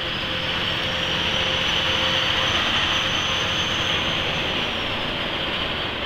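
Steady road and engine noise heard inside a semi truck's cab moving at highway speed, with a faint high whine running through it.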